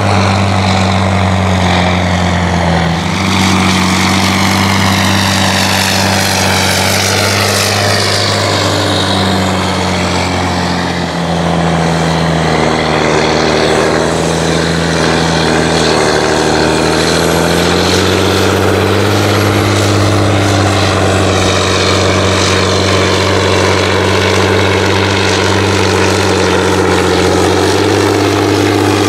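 John Deere 7920 tractor's six-cylinder diesel running hard through an open straight exhaust pipe while pulling a laser land leveler loaded with soil. The engine note sags and wavers through the middle stretch under the load, then steadies again.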